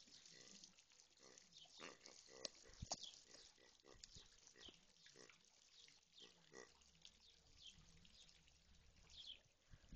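Grey plush toy pig giving out faint, repeated pig grunts as a German shepherd chews and squeezes it, with a few sharp clicks about three seconds in.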